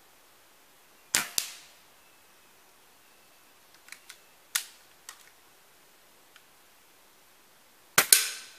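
Air rifle shots from a shrouded BSA Ultra SE .177 and a Webley Raider: sharp cracks about a second in, midway, and the loudest near the end. The first and last are each quickly followed by a second crack, and a few small clicks fall in between.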